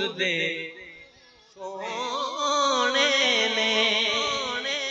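A man singing a naat, a devotional poem in praise of the Prophet, unaccompanied, in a slow ornamented line with wavering held notes. He breaks off briefly about a second in, then comes back with a long drawn-out phrase.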